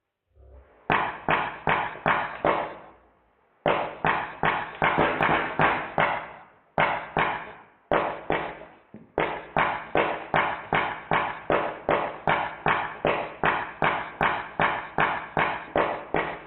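Drozd Blackbird BB gun firing in bursts: evenly spaced sharp shots, about two and a half a second, each with a short fading ring. There are brief pauses between bursts, the longest about three seconds in.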